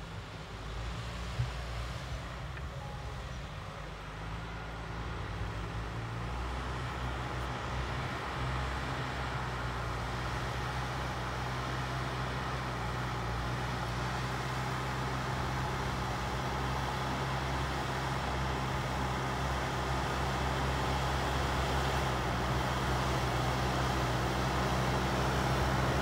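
Diesel engine of a JCB backhoe loader running steadily under load as it pushes a heap of soil with its front bucket, growing louder as the machine comes closer. There is one brief sharp click about a second and a half in.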